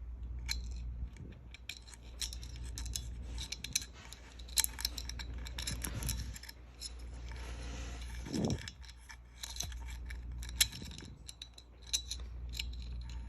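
Irregular small metallic clicks and scrapes of a cable end being poked and worked through a small hole in the part, by hand, over a low steady hum.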